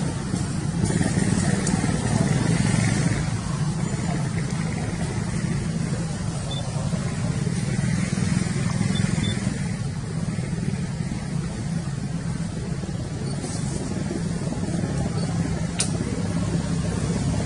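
An engine running steadily at an even speed, a low hum with no revving. A single sharp click sounds near the end.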